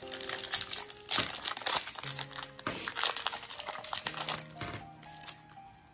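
Foil Yu-Gi-Oh booster pack wrapper crinkling as it is handled and opened, with background music underneath.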